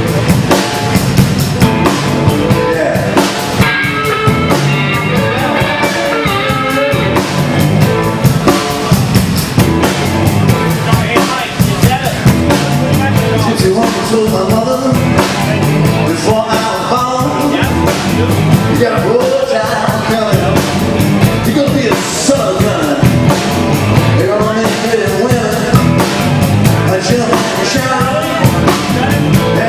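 Live blues-rock band playing loud through PA speakers: drum kit, electric guitars and a lead vocal singing over them.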